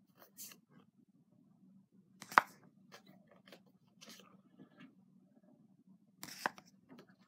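Pokémon trading cards being handled: quiet rustles and light ticks, with two sharp clicks, one a couple of seconds in and one near the end.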